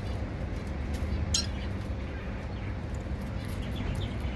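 Cockatiels giving a few short, high chirps, one clear chirp about a second and a half in and fainter ones near the end, over a steady low rumble.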